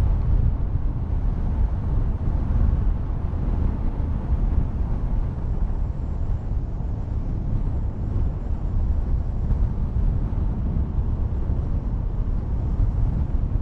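Motorcycle at road speed: steady wind rush on the microphone over engine and tyre noise.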